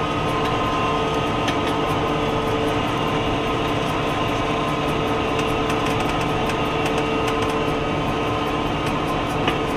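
New Holland T7.245 tractor's six-cylinder diesel engine running steadily under load, pulling a three-point tile plow through the soil, heard from inside the cab. A constant hum with a steady whine over it.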